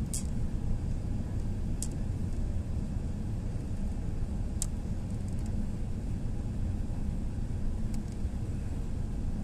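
Steady low rumble of a jet airliner's engines and airflow, heard inside the cabin during the approach for landing. A few faint high ticks cut briefly through it.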